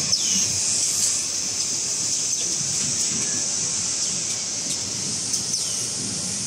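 Automatic kitchen towel paper wrapping machine running: a steady high hiss over a low rumble, with a few sharp clicks and a couple of short falling swishes.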